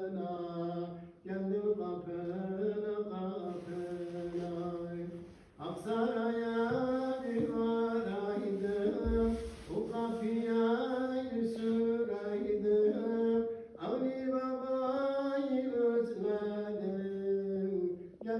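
Unaccompanied male singing of a Turkish ilahi, an Islamic devotional hymn, in long melismatic phrases with short breath pauses about a second, five and a half seconds and fourteen seconds in. The voices echo in the mosque.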